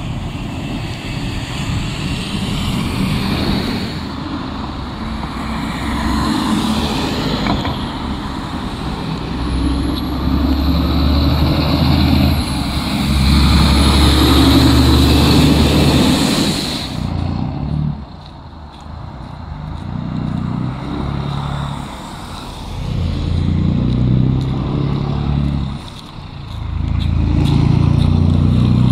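Loaded tractor-trailer dump trucks driving past one after another, their diesel engines running with a deep drone and tyres hissing on the wet, slushy road. The loudest pass comes about halfway through and drops off sharply; more trucks build up again near the end.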